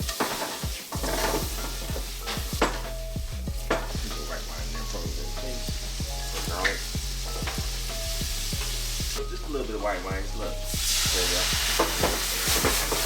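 Food frying in a hot pan, sizzling steadily while it is stirred, with scattered clicks of the utensil against the pan.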